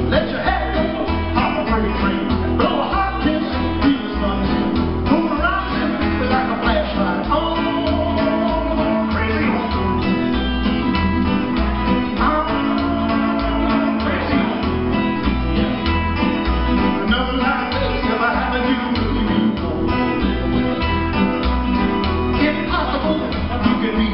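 Live band playing with upright bass, acoustic guitar and electric guitar, over a steady beat.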